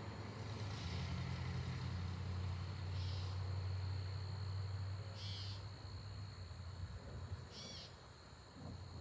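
A low, steady rumble, loudest through the first two-thirds and then fading. Over it a bird gives three short chirps about two and a half seconds apart, and insects drone steadily on a high note.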